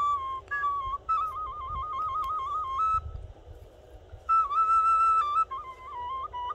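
Wooden end-blown flute playing a folk melody in clear, high notes, with a fast trill in the first half, a short softer pause near the middle, then held notes and a falling run near the end.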